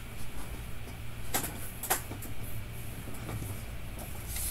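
Handling noise as a paper index card is picked up off a cardboard surface: two light knocks about a second and a half in, then soft rustling, over a low steady hum.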